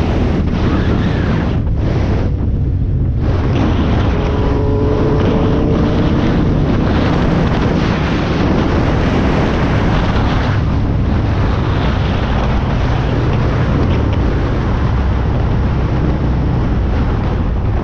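Heavy wind rush on a helmet camera's microphone from an Aprilia sport bike ridden at speed, with the motorcycle's engine running underneath. The wind eases briefly about two to three seconds in.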